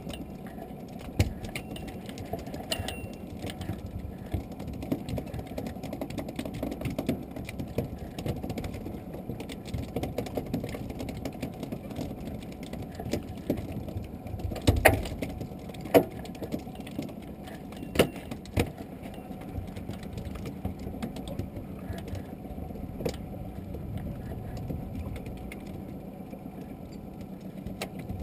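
Fishing reel being wound as a hooked fish is played and brought up to a small boat, over a steady low rumble, with a few sharp knocks clustered about halfway through.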